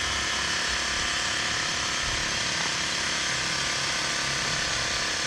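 Steady mechanical running noise from a motor or engine, even and unbroken.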